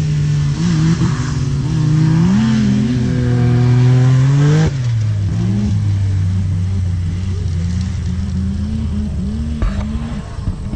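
Off-road racing vehicle's engine revving hard on a run down a dirt track, its pitch rising and dipping through the gears, then backing off sharply about five seconds in. A lower, steadier engine note carries on after that, with a second engine revving unevenly.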